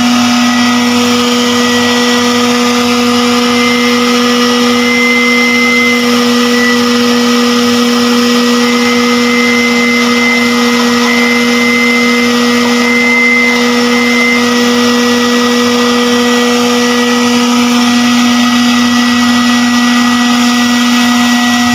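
Homemade vacuum cleaner driven by a blender motor with a sheet-zinc fan, running at a steady full speed with an even, high motor whine while its suction hose is tested. The suction is fairly strong.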